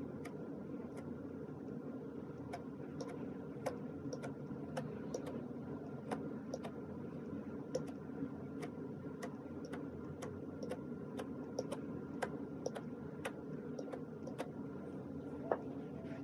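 Slime being squeezed and stretched by hand, making small sharp clicks and pops, irregular and about two a second, over a steady low background hum.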